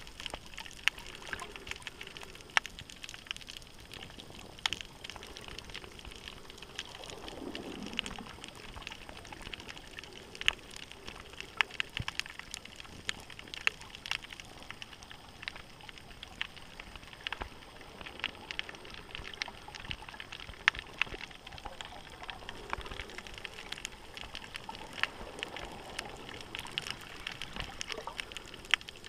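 Underwater reef ambience: a continuous crackle of sharp, irregular clicks, several a second, over a steady hiss. About seven seconds in there is a short low sound that falls in pitch.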